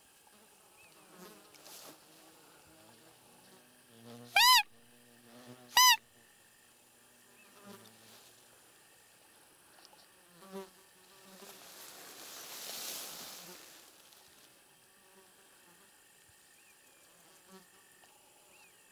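Two short, loud squeaky calls about a second and a half apart, each rising then falling in pitch: a hunter's imitation of a roe deer call, used to lure the deer. A soft rushing noise swells and fades later on, over a faint insect buzz.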